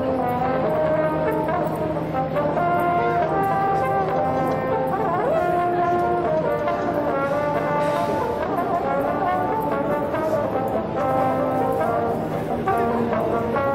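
Brass instruments playing a melody of held notes that step from pitch to pitch, over a steady crowd murmur.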